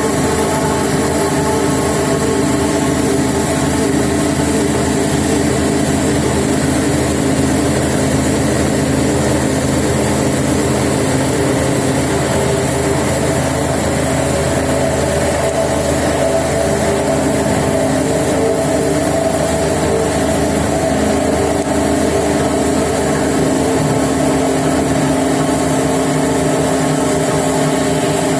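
External pin milling machine with a 750 mm diameter milling cutter running steadily, a loud, even machine hum with several constant tones held throughout.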